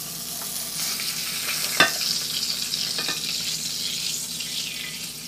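Whole kokanee sizzling in hot butter and oil in a frying pan, with two sharp clicks a little over a second apart; the sizzle eases near the end as the pan comes off the heat.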